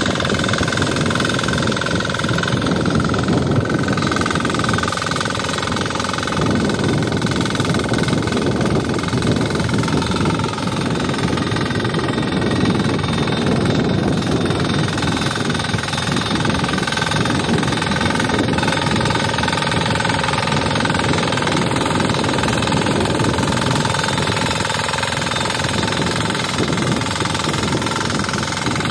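KisanKraft KK-IC300D power weeder's 6 HP single-cylinder diesel engine running steadily under load as its rotary tines work the soil between crop rows.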